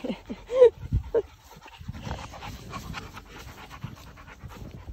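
A dog panting in quick, rhythmic breaths, with a few short pitched sounds in the first second and a half; the first of these, about half a second in, is the loudest moment.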